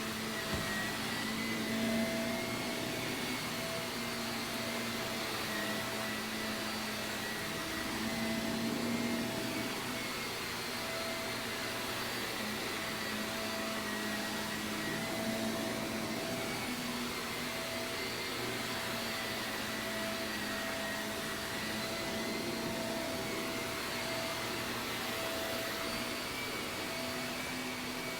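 Shark vacuum cleaner running steadily over carpet, its motor whine wavering slightly in pitch and loudness as it is worked back and forth.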